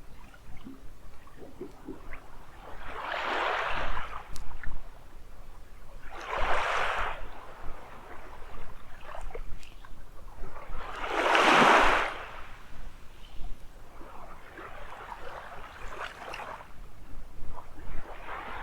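Small ocean waves breaking and washing up on a beach, swelling and fading every few seconds, the biggest about two-thirds of the way through.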